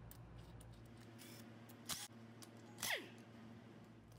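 Faint clicks and clinks of metal engine parts being handled at an exposed timing chain, with a steady low hum underneath. Two louder sharp clinks come about two and three seconds in, the second sliding quickly down in pitch.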